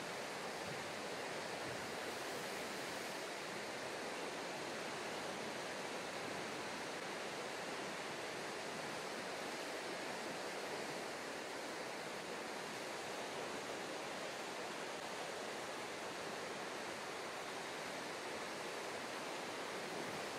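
Steady seashore ambience: an even rush of seawater at a rocky, shelly shore, with no separate wave breaks or other events.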